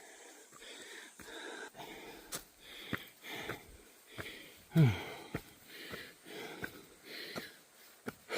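Hiker breathing hard and wheezing while climbing a steep trail, with about two heavy breaths a second and one louder voiced groan of an exhale about halfway through. There are a few faint clicks among the breaths.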